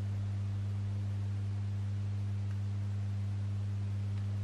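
Steady low electrical hum at a single pitch, with a fainter tone an octave above it.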